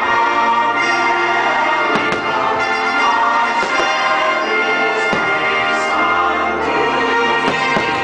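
Orchestral show music with brass, part of a medley of American folk songs.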